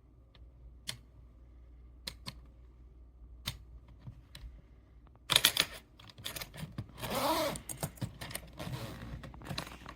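Scattered sharp clicks and taps, then from about five seconds in a louder, busier stretch of rustling and scraping handling noise.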